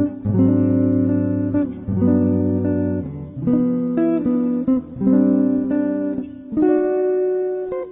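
Solo electric guitar playing a jazz chord-melody arrangement: a run of full chords, each struck and left to ring about a second and a half before the next.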